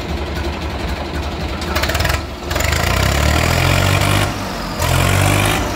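Swaraj 855 FE tractor's three-cylinder diesel engine idling, then revved up twice, about two and a half seconds in and again near the end. It runs smoothly, and the owner finds nothing wrong with the engine.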